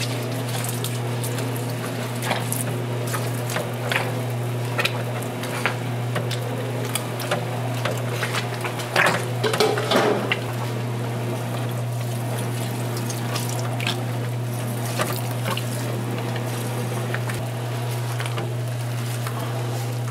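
Kitchen work sounds: a steady low hum under scattered clicks and knocks of utensils, busiest about nine to ten seconds in, with a watery, liquid sound beneath.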